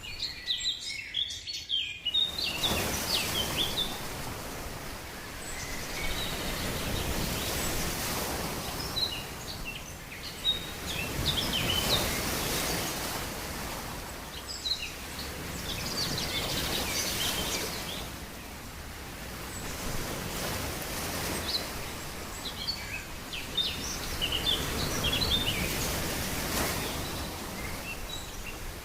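Outdoor nature ambience: birds chirping here and there over a rushing noise that swells and fades in slow waves every several seconds. The rushing comes in about two seconds in.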